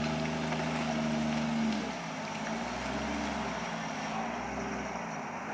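Off-road 4x4's engine running at steady revs, which fall away about two seconds in, then carry on lower and quieter.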